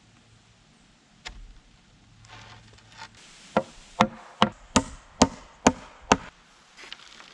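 Hammer blows on wood: a single knock, then a quick run of seven strikes at about two a second.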